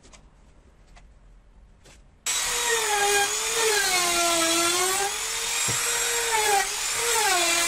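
Handheld trim router cutting along the edge of pine posts: a loud, high motor whine whose pitch sags and recovers as it is pushed through the wood. It starts abruptly a little over two seconds in, after a few faint light clicks.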